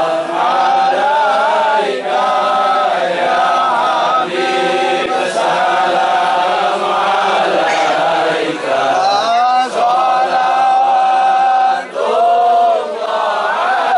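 Many men's voices chanting together in unison, an Islamic devotional chant sung in slow melodic phrases with long held notes and brief breaks between phrases.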